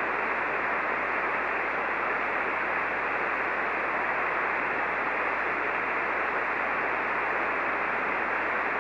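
Steady hiss of band noise from an HF ham radio receiver on the 75-metre band in SSB mode, heard while no station is transmitting on the channel.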